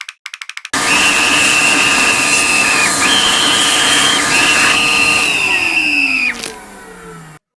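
Brief rapid clicking, then a loud high-speed electric motor starts abruptly and runs with a whine over a grinding noise, its pitch stepping up and back down. Near the end it spins down with a falling whine and cuts off suddenly.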